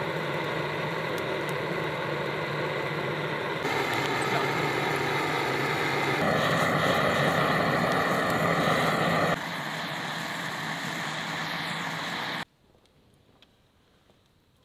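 Handheld butane torch hissing steadily as its flame is held to firewood, changing level abruptly a few times, then cutting off about twelve seconds in.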